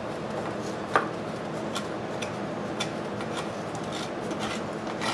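Hand rasp (a cheese-grater file) scraping still-hardening body filler putty in short, steady rasping strokes, with a single sharp knock about a second in.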